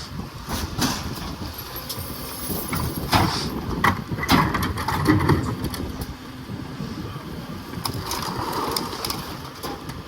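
Freightliner garbage truck with a McNeilus rear-loader body running, with a cluster of sharp knocks and clanks about three to five seconds in.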